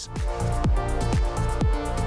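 Background electronic music: sustained synth chords over a steady kick-drum beat.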